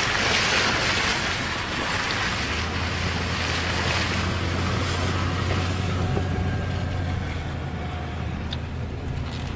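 SUV driving over rain-flooded desert ground: a rush of tyre spray and wind noise, loudest in the first couple of seconds, with a steady low engine drone coming in about two and a half seconds in.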